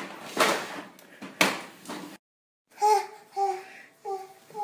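Two loud clatters of plastic toys knocking on a wooden floor, then, after a short break, a toddler babbling in a string of short, repeated sing-song calls.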